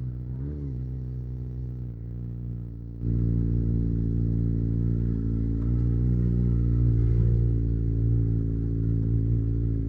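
Kawasaki ZX25r's 250 cc inline-four running through an Akrapovic exhaust at a steady low speed, with one short blip of the throttle about half a second in. About three seconds in it gets suddenly louder, its pitch still steady.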